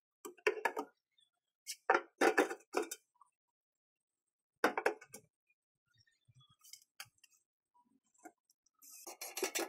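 Three short bursts of clattering knocks, wood and metal against a steel oil drum, as a round wooden shelf and a spirit level are set in place and magnetic clamps are put on. Near the end a longer, denser burst as a cordless drill is set to work on the drum's steel side.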